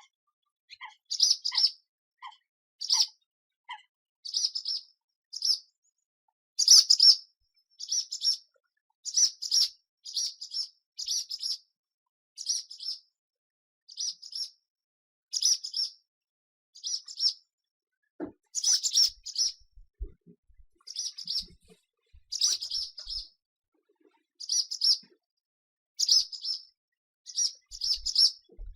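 Swallow chirping: short, high twittering calls repeated about once a second, each a quick cluster of notes, with silence between them.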